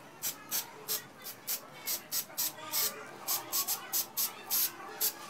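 Aerosol spray can fired in a rapid series of short hissing bursts, about three a second, spraying the frame of a bicycle.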